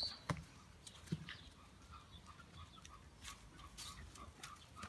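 Young Labrador puppies moving about on a padded dog bed and wet paving: a few soft knocks and scuffs, with a faint, quick run of repeated chirps behind them.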